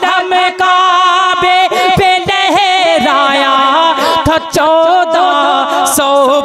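A man sings a naat without instruments through a sound system with echo added. It is a long drawn-out passage of held, wavering notes that slide from pitch to pitch.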